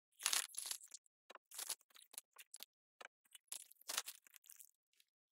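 A clear plastic Ziploc bag crinkling and rustling in irregular bursts as biscuits are put into it.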